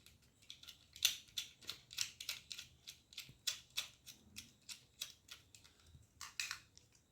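Plastic phone holder being screwed by hand onto the threaded mount of a vlogging tripod: a run of short scratchy clicks and scrapes, about three a second, as the part is turned on the thread.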